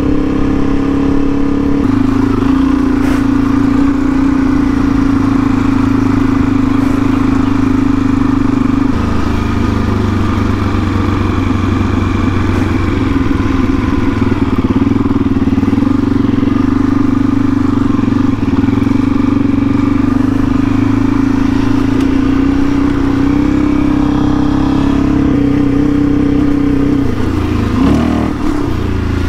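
Suzuki DR-Z400E's single-cylinder four-stroke engine running steadily while riding. Its note shifts lower after about nine seconds, comes back up later on, and dips briefly just before the end.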